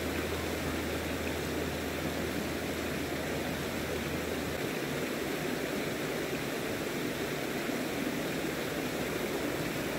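Creek water running steadily over rocks, a constant rushing with no change in level.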